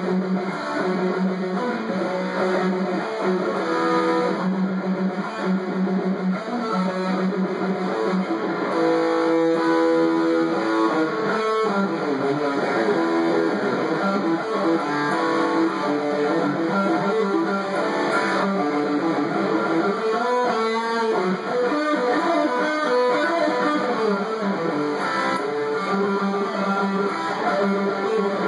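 SG-style solid-body electric guitar played through an amplifier in a rock jam, with riffs and lead lines and notes held for a second or more.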